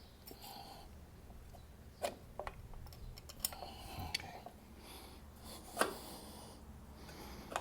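Scattered sharp clicks and knocks, about five, with faint scraping between them, from handling brake shoes, return springs and hand tools on a drum brake backing plate.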